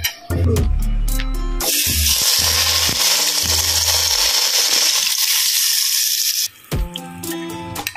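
Hot oil poured over chili flakes, sesame seeds and sliced green chilies sizzles loudly for about five seconds, starting near two seconds in, over background music that comes back up near the end.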